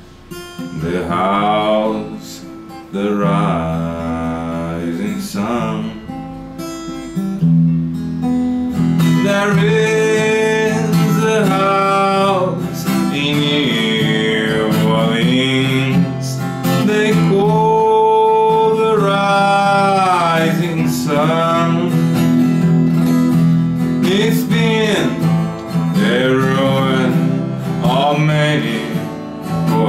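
Steel-string acoustic guitar strummed in A minor, with a man's voice singing along over it.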